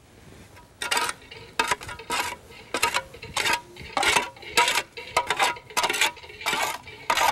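Slow, uneven footsteps and walking-stick taps scuffing on a gritty paved yard, about two scrapes a second.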